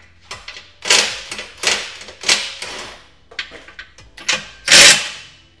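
A wrench tightening exhaust fasteners in a series of short bursts of rapid clicking, the loudest burst near the end.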